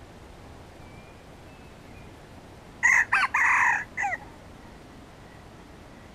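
Red junglefowl rooster crowing once, about three seconds in: a loud, choppy crow that ends in a short falling note.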